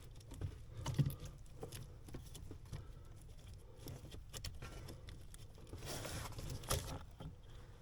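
Faint scattered clicks and light knocks over a low steady hum, the loudest about a second in and another near the end.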